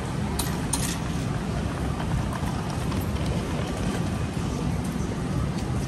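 Steady city street noise: a low rumble of traffic under an even hiss, with two brief sharp sounds about half a second in.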